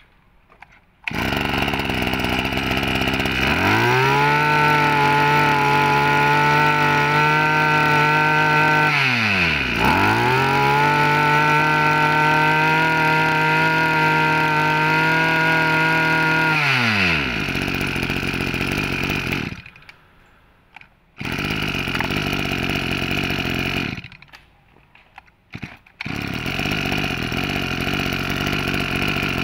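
Echo 23cc two-stroke brush cutter engine starting and idling, then revved to full throttle and held. It drops for a moment and revs straight back up, falls back to idle and cuts off. It then runs briefly twice more at a steady speed, stopping in between.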